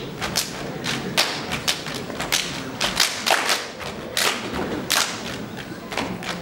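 Saman dance body percussion: a row of kneeling dancers slapping their bodies and clapping in unison. Sharp slaps come a few times a second in an uneven, driving rhythm.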